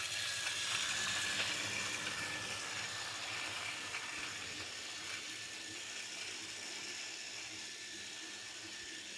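Battery-powered Fisher-Price TrackMaster Skarloey toy engine running on plastic track with two coaches: a steady whirring hiss of its small motor and wheels, slowly fading as it moves away.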